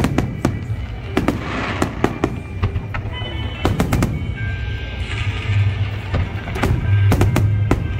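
Aerial fireworks going off in a rapid, irregular string of sharp bangs, several a second.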